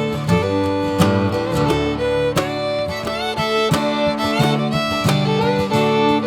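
Background music: an instrumental track with fiddle and guitar and a steady beat.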